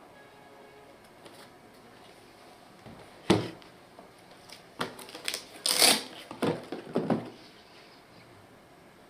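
Packaging of a tool being handled on a surface: a sharp knock, then a quick run of clicks and scrapes over about two and a half seconds.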